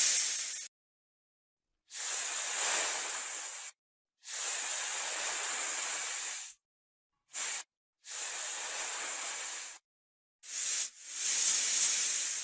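Snake hissing: a run of separate hisses, most lasting one to two seconds with short silent breaks between them, and two very brief hisses in between.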